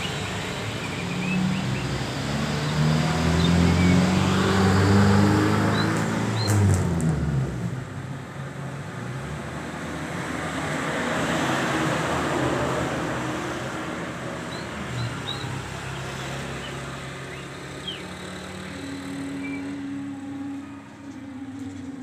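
A motor vehicle passing close by, its engine hum building and shifting in pitch before fading about seven seconds in, then a second, softer pass of traffic noise around the middle. Short, faint bird chirps sound here and there.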